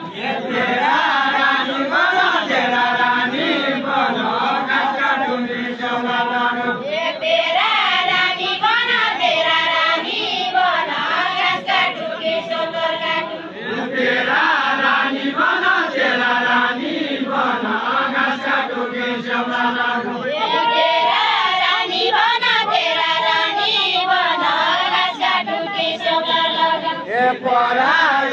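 A group of men singing a deuda, the Far-western Nepali folk dance-song, together in long repeated phrases with short breaks between them.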